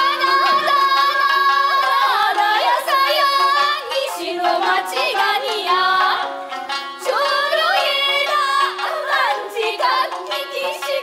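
Young women's voices singing a melodic Okinawan folk-theatre song with gliding, ornamented phrases over instrumental accompaniment.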